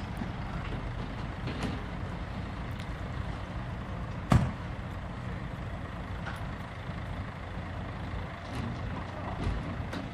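Heavy diesel lorry engine running steadily at idle, with one sharp knock about four and a half seconds in.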